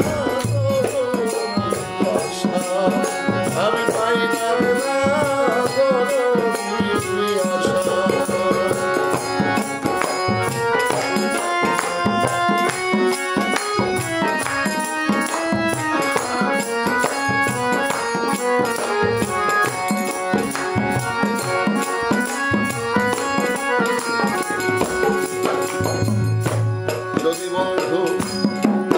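Live folk music: a man singing over a harmonium's held reed chords, with a dholak barrel drum and a small hand drum keeping a steady beat and a rattle shaking along.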